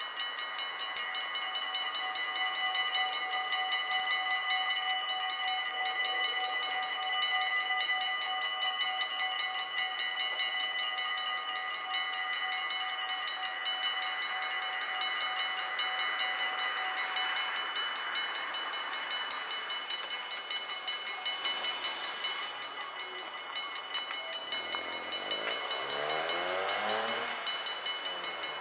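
Electronic warning bells of a Dutch railway level crossing ringing in a fast, steady, even clang while the crossing closes and its half-barriers lower. A rushing noise swells in the last few seconds.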